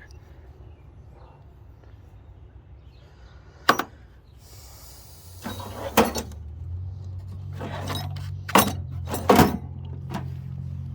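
Objects being handled: a few sharp knocks and clacks, one about four seconds in and several in the second half, with rustling between them and a low hum underneath.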